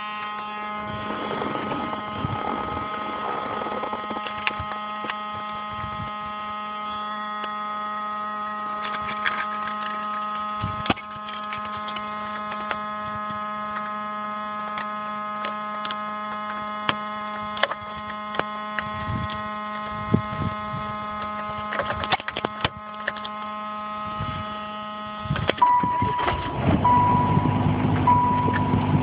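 Steady electrical buzz from somewhere in a Saturn car with the battery on, a low hum with a whine of higher tones over it. Its source is unknown, and it keeps going with the car switched on. Near the end a lower rumble and a steady beeping tone come in.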